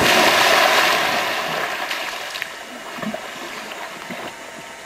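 Lake water splashing and churning right after a person plunges in, the noise fading over about two seconds into quieter sloshing around the swimmer.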